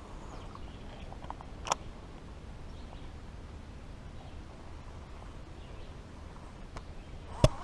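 Steady low outdoor background noise with a faint click about two seconds in and a loud, sharp click near the end.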